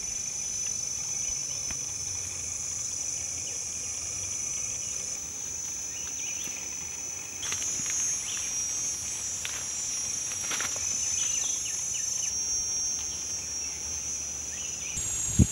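A dense, steady, high-pitched forest insect chorus, with a few faint clicks and rustles in the middle.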